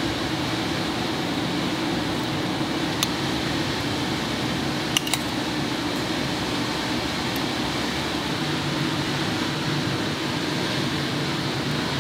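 Steady hum of a ventilation fan, with a light click about three seconds in and two more about five seconds in.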